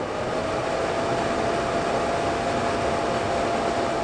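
Elechomes HEPA air purifier's fan running at speed level 3: a steady rush of air with a faint steady hum in it. It grows slightly louder in the first moment as the fan comes up to speed, then holds even.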